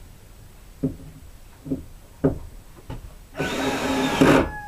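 A few light knocks, then a Ryobi cordless drill runs into wood for about a second and winds down as it stops.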